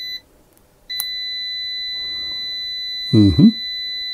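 GVDA GD128PLUS multimeter's continuity beeper: a short beep that stops just after the start, then a steady high beep from about a second in that holds on as the probes make contact at near-zero resistance, signalling continuity. A short loud vocal sound from a person about three seconds in.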